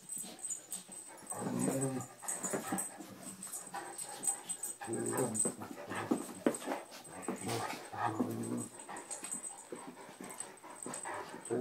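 Anatolian Shepherd making low, bear-like play growls in several short bouts while play-fighting gently with a small dog, with scuffling between them.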